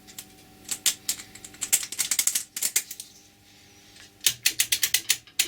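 Quick runs of sharp clicks and rattles from an old battery charger being handled and worked to get it to come on, in two bursts of several clicks a second.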